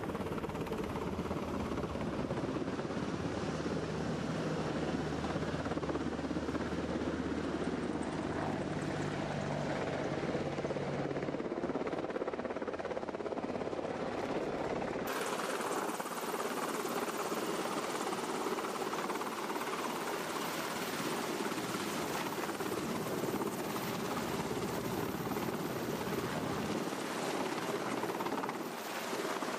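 H-60 helicopter flying in low and hovering close overhead, a steady dense rotor and turbine noise. About halfway through the sound suddenly loses its deep rumble and becomes brighter and hissier.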